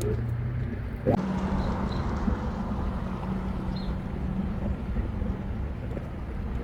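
Steady low engine hum with wind rumble on the microphone; the hum steps up in pitch about a second in.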